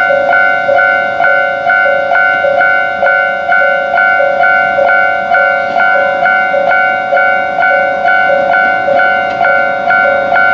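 Japanese railway level-crossing alarm ringing steadily: an electronic bell striking about two and a half times a second, each strike a bright ding that fades quickly, warning of an approaching KiHa 40 diesel railcar.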